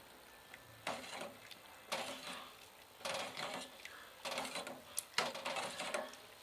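Metal spoon stirring mung bean porridge in a stainless steel pot, scraping and knocking against the pot's bottom and sides in irregular strokes about once a second.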